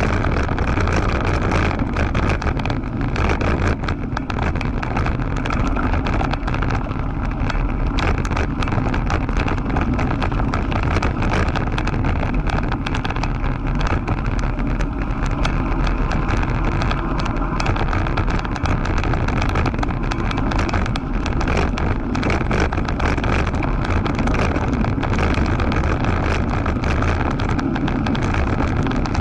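Mountain bike rolling fast over a gravel dirt track, the tyres crunching on the stones and the bike rattling with many small clicks, under steady wind rush on the camera's microphone.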